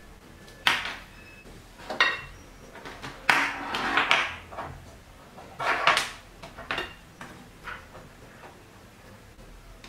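Clicks, knocks and clatter of microscope LED ring lights being handled: one is taken off the microscope objective and set on the desk, and the next is fitted in its place. There are several separate sharp knocks and a longer rattling cluster around three to four seconds in.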